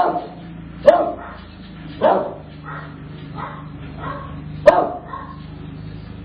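Dogs barking: four loud, sharp single barks at irregular intervals, with fainter barks from farther off in between, over a steady low hum.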